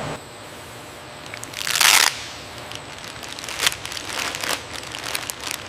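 A short burst of hissing about two seconds in, followed by scattered crinkling and clicking.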